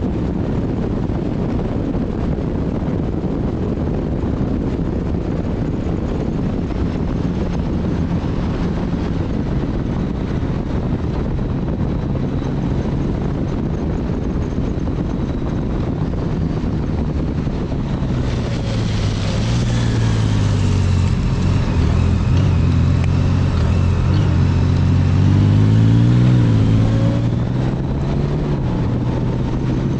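Motorcycle engine running steadily while riding, under heavy wind noise. About two-thirds of the way in, the engine sound grows louder and fuller and rises in pitch for several seconds, then settles back near the end.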